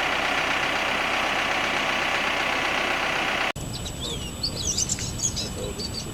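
Bucket loader engine running steadily, cut off abruptly about three and a half seconds in. Small birds then chirp and call.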